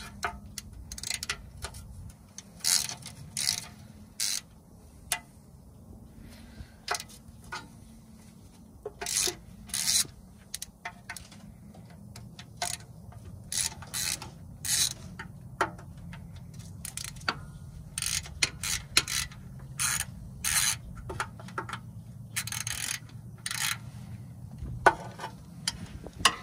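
Hand socket ratchet clicking in short, irregular bursts as the oil pan bolts on a Jeep Cherokee XJ are broken loose and backed out, over a faint steady low hum.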